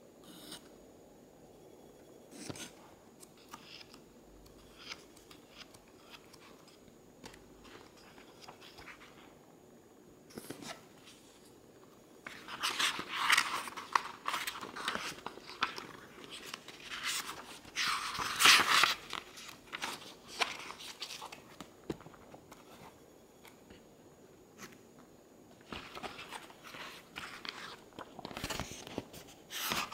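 Pages of a paperback book being flipped and turned by hand, rustling in bursts. The first part is quiet apart from a few light handling ticks. Louder rustles come in bunches from about halfway, the loudest in the middle, and more come near the end.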